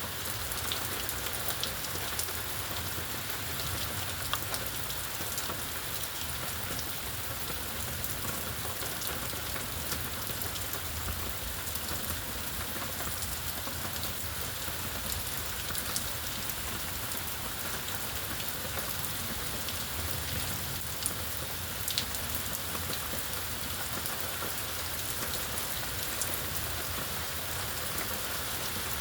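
Steady rainfall, an even hiss with scattered individual drops ticking sharply on nearby surfaces.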